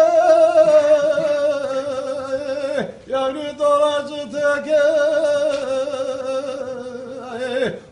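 A man singing unaccompanied in long, wavering held notes, breaking for a breath about three seconds in and again near the end.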